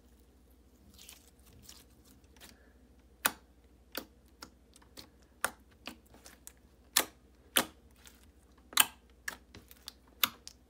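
Thick Nickelodeon slime worked and kneaded by hand, giving irregular sharp clicks and pops as air pockets in it burst. The clicks start about three seconds in and come roughly one or two a second.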